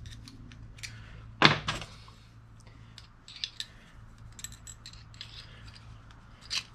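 Small metallic clicks and clinks of steel differential gears shifting in their casing as a cross-pin differential is turned and jiggled by hand to centre the planet gears. There is one sharper knock about a second and a half in.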